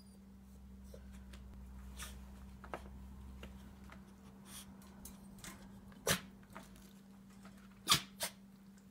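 A dog in a wire crate making a few short, sharp sounds, the loudest two about six and eight seconds in, over a steady low hum.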